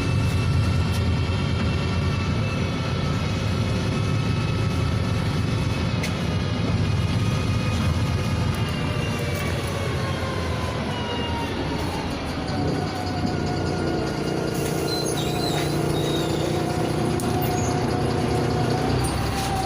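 Inside a NefAZ 5299 city bus on the move: the drivetrain's whine, several tones at once, falls slowly in pitch for about twelve seconds as the bus slows, over a constant low diesel hum, then settles into a steady drone.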